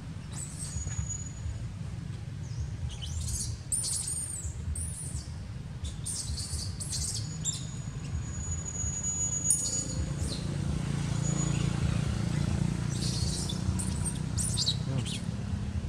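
Birds chirping in short, scattered bursts of high calls, with a brief thin whistle near the middle, over a steady low rumble.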